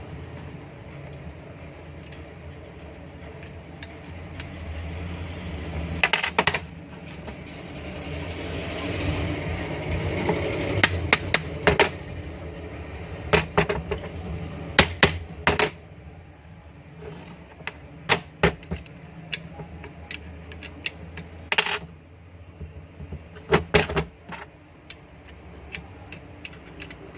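Small metal parts and hand tools clicking, tapping and clinking against each other as an exhaust fan motor is reassembled, in scattered clusters of sharp knocks over a low steady hum.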